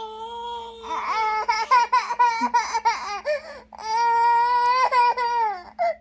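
A baby crying for attention: a long held wail, then a string of short, broken sobbing cries, then a second long wail and a short cry near the end.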